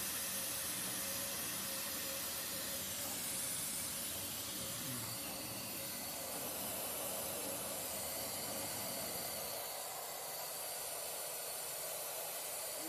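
Steady hiss of air blowing through a hot-air heating tube used for PP glue sealing. A faint high tone joins about five seconds in.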